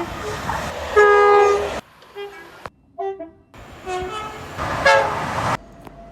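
Train horns sounding across several abruptly cut clips: a loud horn blast about a second in, a few short toots in the middle, and another loud blast near the end.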